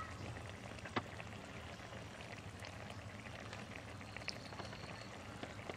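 Thick taro-leaf and small fish curry simmering and bubbling in an iron kadai over a stick fire, with scattered small pops and one sharper crack about a second in.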